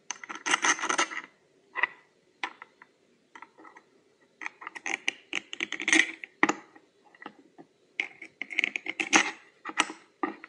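Small bolts clinking and scraping against machined metal crankcase halves as they are fitted through by hand: a run of short metallic clicks and taps with brief pauses.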